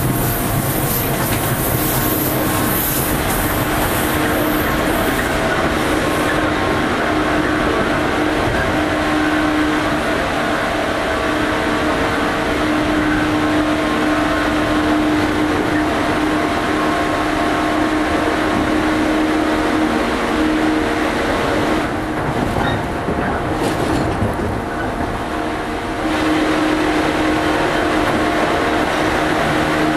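JR 115 series electric train running at speed: a steady hum of traction motors and gears at a few fixed pitches over the rush of wheels on rail. A high hiss fades out about six seconds in, and the sound drops briefly about two-thirds through before picking up again.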